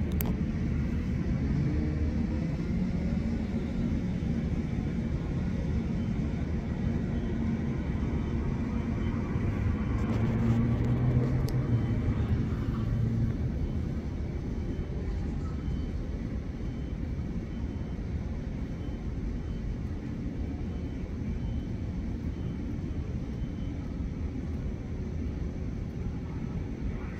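Jet engines of a taxiing Boeing 747 freighter, a continuous low rumble with a steady drone. It swells at about ten to thirteen seconds, then eases.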